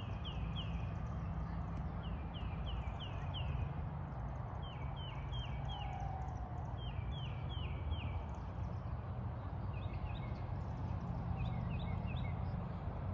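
A songbird singing repeated phrases of four or five quick, falling whistled notes, over a steady low rumble.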